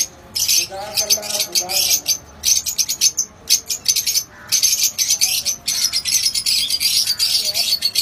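A colony of lovebirds in an aviary chattering and shrieking: a dense run of rapid high-pitched chirps, broken by short pauses about three and four seconds in.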